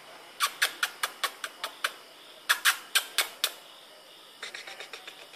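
A cat's claws scratching in quick, sharp strokes, about five a second. There are two runs, then a fainter, quicker run near the end.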